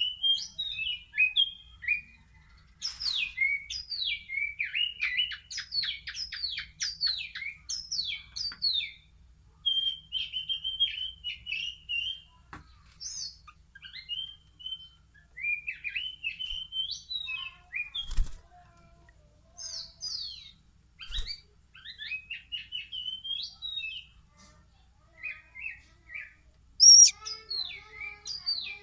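Young speckled Oriental magpie-robin chicks, about three weeks old, chirping over and over in short calls and quick runs of notes, with brief pauses. Two sharp knocks sound about 18 and 21 seconds in.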